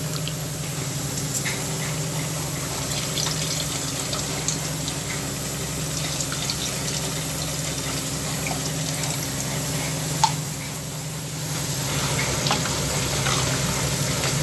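Soaked tamarind being squeezed by hand in water in a steel bowl, then the tamarind water poured into a clay pot: liquid sloshing and trickling, with small clicks, over a steady low hum.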